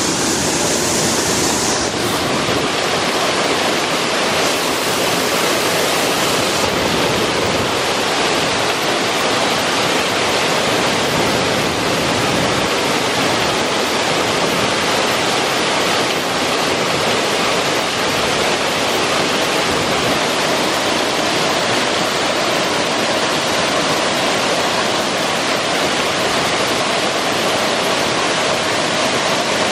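Creek water rushing through a small rocky cascade between boulders, a steady whitewater rush.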